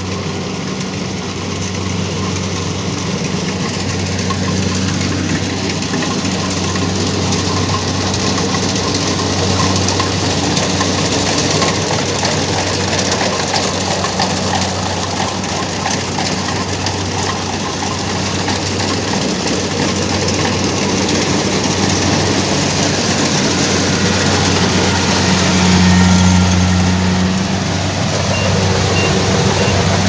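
Kubota DC-70 series rice combine harvester running while it cuts and threshes the crop: a steady engine drone with machinery clatter over it, growing louder as the machine comes closer and loudest shortly before the end.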